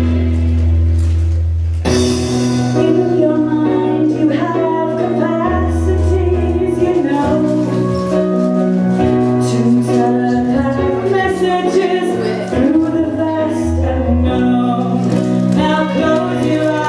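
A song with singing over an instrumental backing, with sustained chords and a bass line; a crash about two seconds in brings in the sung melody.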